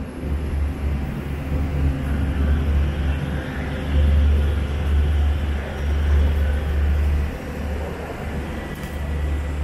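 Engines running on an airport apron: a steady low drone with a hiss of aircraft and apron-bus engine noise over it, louder for a stretch in the middle.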